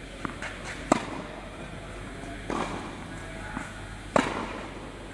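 Tennis ball struck with a racket on forehands: two sharp pops about three seconds apart, about a second in and just after four seconds. Lighter knocks of balls bouncing on the court come in between, ringing a little in the hall.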